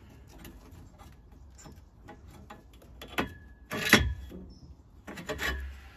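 Scattered knocks and clinks of hand tools and concrete blocks as a bricklayer works at a block wall, with two sharp hits about three and four seconds in, the first ringing briefly.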